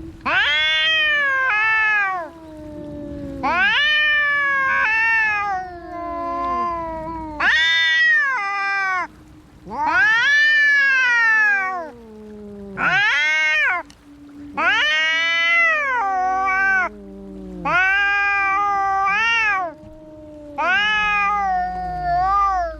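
Cats caterwauling in a fight standoff: about eight long, wavering yowls in a row, each rising and then falling in pitch, with lower, drawn-out falling moans between them.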